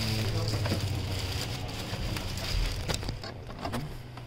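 Clear plastic packaging bag crinkling and rustling as it is pulled off a printer, with many small crackles, growing quieter near the end.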